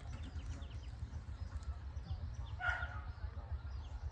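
A dog barks once, about two and a half seconds in, over a steady low rumble.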